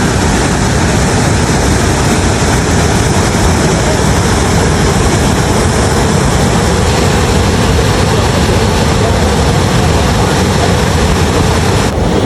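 Sezibwa Falls waterfall: a loud, steady rush of falling water.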